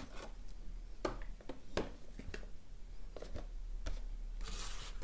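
Handling sounds on a table: a few light knocks and taps as a hatchet, a booklet and a box are picked up and set down, then a short rustling scrape near the end.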